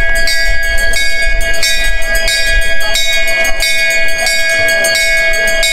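A bell struck rapidly over and over, its ringing tone held steady under the repeated strokes.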